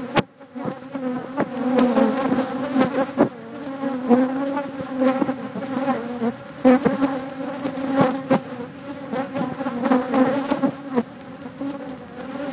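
Many bees buzzing close around a phone in a defensive attack, the buzz wavering in pitch and swelling and fading as they pass. Frequent sharp clicks come through as bees strike the phone.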